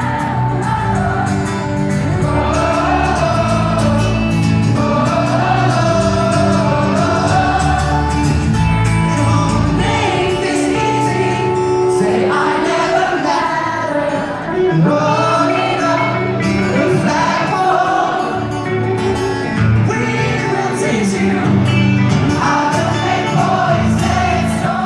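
Live acoustic rock song: two acoustic guitars strummed and a male lead voice singing, with many voices of the crowd singing along, heard from inside the audience.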